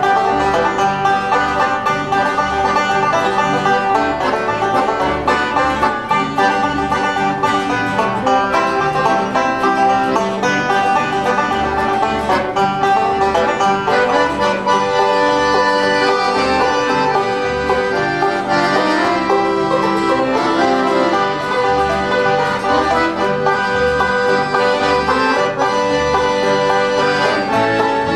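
Bluegrass band playing an instrumental passage: banjo picking prominently over guitar chords, with a bass plucking a steady alternating beat underneath.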